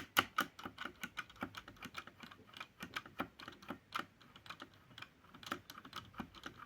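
Keys of a Cosmic Byte mechanical keyboard pressed one at a time, giving irregular, separate clicks a few per second. One key sounds off to the owner, unlike the crisp sound of the rest.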